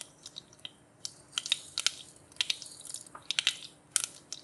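Mustard seeds spluttering in hot ghee for a tadka: irregular sharp pops over a light sizzle, sparse at first and coming thicker from about a second in. The popping is the sign that the ghee is hot enough for the rest of the tempering.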